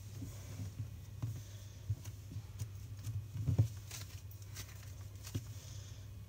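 Hands squeezing and kneading a soft toy, which makes irregular soft clicks, crackles and sticky pops, with a cluster of louder ones about three and a half seconds in. A steady low hum sits underneath.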